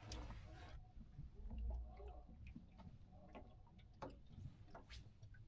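Faint, irregular clicking and ticking of a spinning reel being cranked on a crappie rod, over a low background rumble.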